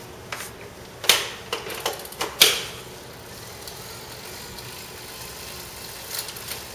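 Magnetic turbo trainer with a road bike's rear tyre on its roller, running steadily as the bike is pedalled. Several sharp clicks sound in the first couple of seconds and a couple more near the end.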